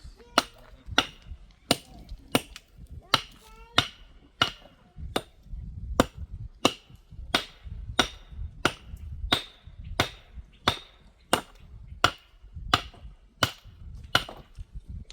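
A hand tool striking wood in steady, evenly spaced blows, about one and a half a second, each with a short metallic ring.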